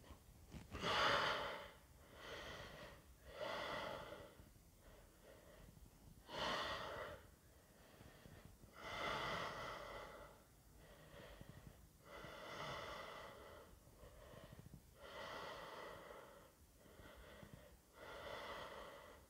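A man breathing slowly and audibly, a faint breath every few seconds, while holding a prone yoga backbend.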